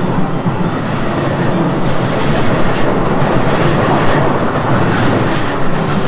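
JR East E233 series electric commuter train passing close by: a loud, steady rumble of steel wheels on the rails, with wheels clacking over the rail joints about halfway through.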